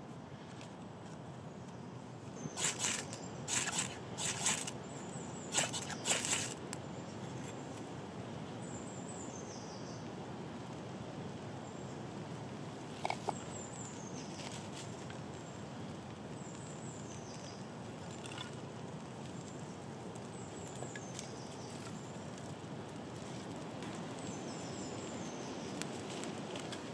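A few footsteps crunching through dry leaf litter about two to six seconds in, over steady woodland background noise. A small bird repeats a short, high, falling phrase every few seconds.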